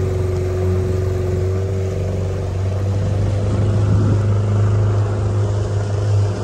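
Small boat's 15 hp outboard motor running at a steady pitch while underway.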